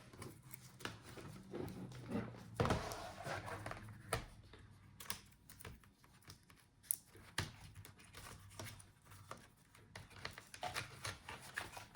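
Small clicks, taps and knocks of plastic laptop parts being handled, scattered irregularly as the palmrest assembly of an HP EliteBook 840 G8 is lifted away and its cables disconnected.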